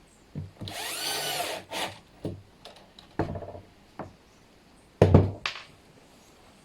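Power drill running for about a second, driving a screw while a flush-mount hinge is fitted to wooden boards. Scattered clicks and knocks follow as the pieces are handled, with a loud thump about five seconds in.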